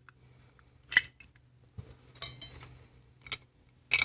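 Small metal parts of a Linkert carburetor float bowl clinking and tapping as they are handled and taken apart by hand: a few sharp clicks, the loudest about a second in, and a short rattling clatter a little after two seconds.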